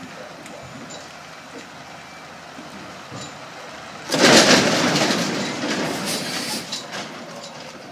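Scania road train reversing with a low, steady running sound. About four seconds in, its air brakes let out a sudden loud hiss that fades away over the next few seconds as the rig comes to a stop.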